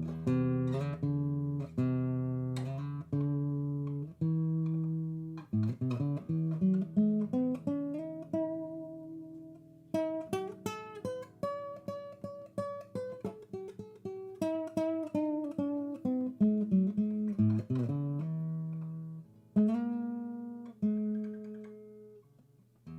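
Acoustic guitar music: plucked notes and strummed chords with a picked melody line, each note sounding and fading.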